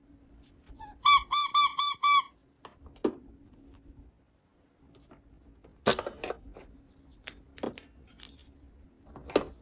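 A squeaky toy squeaking about six times in quick succession, each squeak rising and falling in pitch. This is followed by scattered light clicks and taps of plastic pieces being handled.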